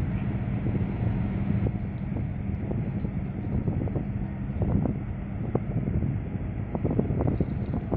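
Wind buffeting the microphone over a steady low engine drone on the water, with short gusty flickers scattered through.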